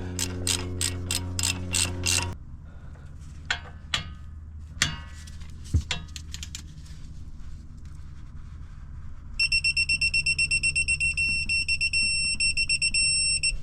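A power ratchet running on a brake caliper bolt, clicking about four times a second over a motor hum, stops about two seconds in. A few metal knocks follow, then a fast high electronic beeping for the last four seconds.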